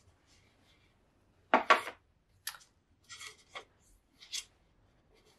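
Stiff paper picture cards being handled: a loud rustling scrape about one and a half seconds in, then several shorter, softer rustles as the cards are shifted.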